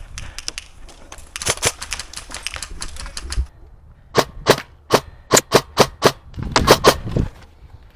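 Airsoft guns firing a string of about ten sharp, irregularly spaced semi-automatic shots over some three seconds, after a couple of seconds of scuffling noise.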